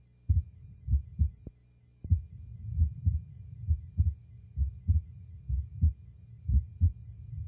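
Normal, healthy heart sounds: a regular lub-dub, the first sound (S1, mitral and tricuspid valves closing) followed closely by the second (S2, aortic and pulmonary valves closing). The pairs of low thuds repeat roughly once a second, with no extra sounds between them.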